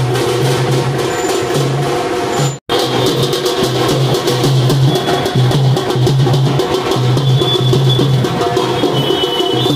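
Drum-heavy music: fast, sharp drum strokes over a pulsing low beat, cut off by a brief dropout about two and a half seconds in.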